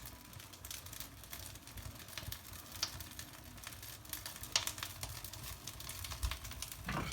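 Bark burning in a fireplace, crackling with irregular sharp snaps.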